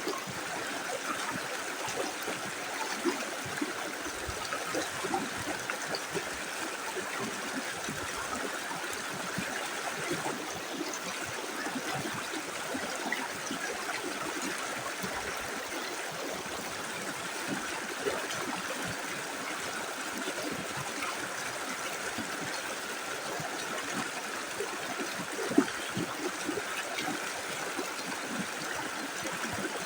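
Small river flowing steadily over stones, with a continuous rush and small gurgles and splashes; one brief louder splash near the end.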